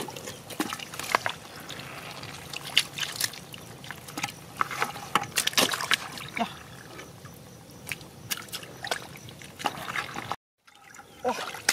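Shallow muddy water sloshing and trickling, with many short, sharp splats scattered throughout. The sound cuts out completely for a moment a little after ten seconds in.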